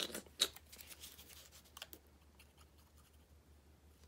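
Small paper craft pieces and a glue bottle handled on a tabletop: two sharp clicks in the first half second, then faint scattered ticks and light rustling.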